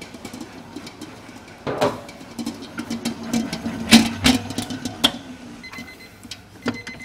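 Commercial planetary dough mixer running at second speed, kneading a wet ciabatta dough, with a steady hum under a string of sharp knocks and clatters; the loudest knock comes about four seconds in.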